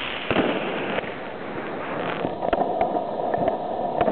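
Street fireworks and firecrackers going off amid a crowd: a constant din broken by sharp bangs, one just after the start and several more in the second half.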